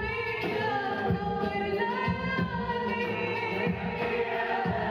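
Live performance by a female lead singer with a choir, holding long melodic notes that slide slowly from pitch to pitch, over low repeated beats.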